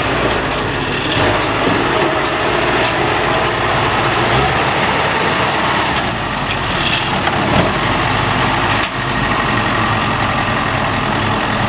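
Kubota DC70 combine harvester's diesel engine running steadily, with a few light clicks and a brief drop in level about nine seconds in.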